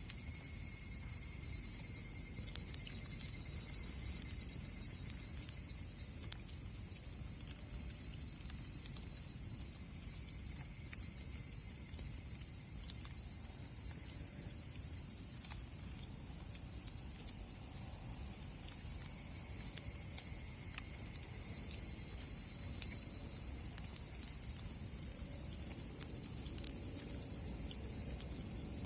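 Steady high-pitched insect chorus, like crickets, with faint scattered crackles and pops of a wood campfire.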